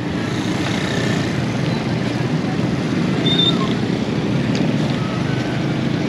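Steady street traffic noise: motorcycle and other vehicle engines running on the road close by.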